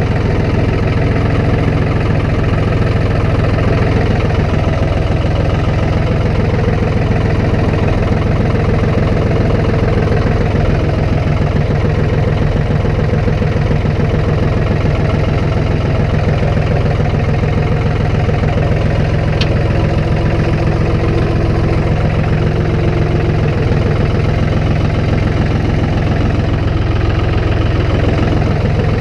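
A plow vehicle's engine running steadily at a constant speed, with no revving.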